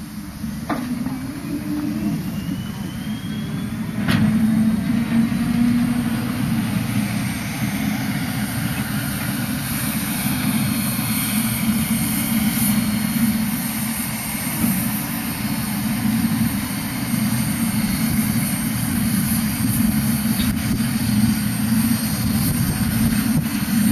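Steam locomotive C61 2 being turned on a roundhouse turntable: a steady low rumble with a hiss of steam over it. A sharp click comes about four seconds in, and the sound is louder after it.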